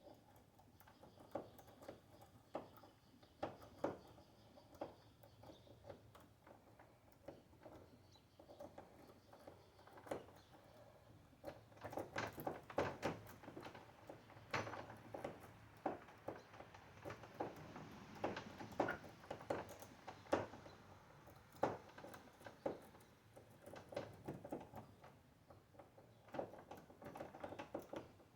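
A lock-pick rake scraping back and forth inside a five-pin tumbler lock cylinder under light tension, with many small irregular metallic clicks from the pins. The clicking grows busier and louder for several seconds in the middle.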